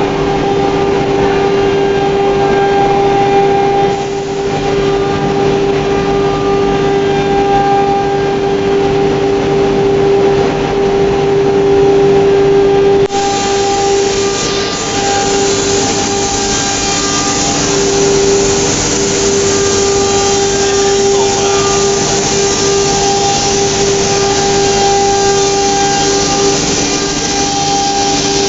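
ATC CNC router spindle running with a steady whine. About 13 seconds in, a loud hiss of the cutter machining the board joins it and carries on.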